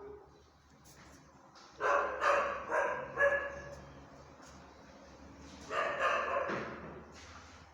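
A dog barking: a quick run of about four barks about two seconds in, then another short bout of barks near the end.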